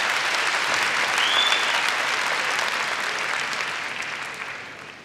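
Large arena crowd applauding, the applause dying away over the last second or two.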